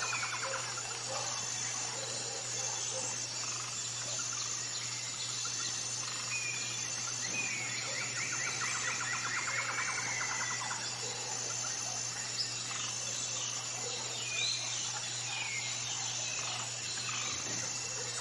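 Forest ambience: several birds chirping and trilling on and off, with a busier stretch of calls in the middle, over a steady high insect buzz that pulses about once a second.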